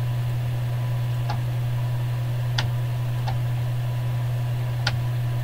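Four isolated clicks of a computer mouse, irregularly spaced about a second apart, over a steady low hum.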